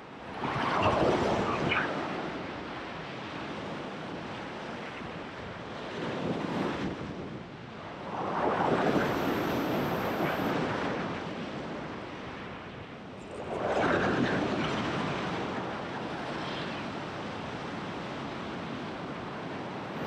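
Ocean waves surging and washing over a rock ledge, rising and falling in three main surges, the longest in the middle, with wind on the microphone.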